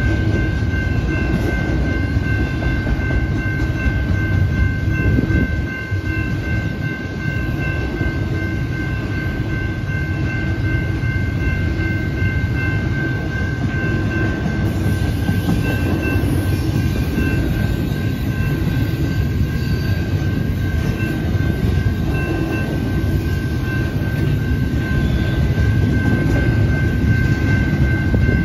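Double-stack intermodal container train rolling past at close range: a loud, steady rumble of wheels and well cars on the rails. A steady high-pitched ringing tone runs over it.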